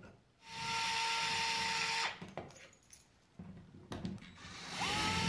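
Cordless drill/driver whirring in two short runs, backing a screw out of the drywall: a steady whine of about a second and a half, then a second run that rises in pitch as it spins up. A few light clicks fall between the runs.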